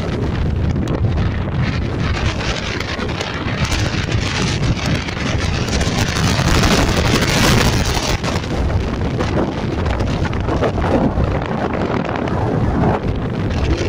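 Strong wind buffeting the microphone in a continuous low rumble, gusting louder about halfway through.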